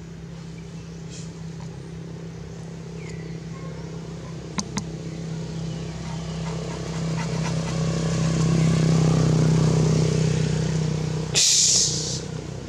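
A motor running steadily, growing louder toward about nine seconds in and easing off again, with two sharp clicks near the middle and a sudden loud hiss just before the end.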